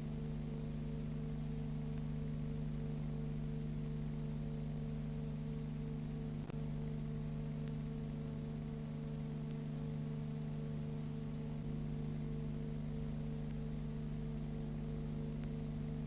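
Steady electrical hum with an evenly pulsing higher tone above it, over a layer of hiss, with no sound from the sea or birds on screen. A single brief click about six and a half seconds in.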